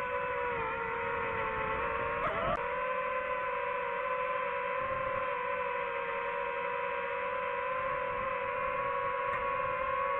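Quadcopter drone's propellers whining steadily, the pitch wavering slightly, with a quick dip and rise in pitch about two seconds in as the motors change speed.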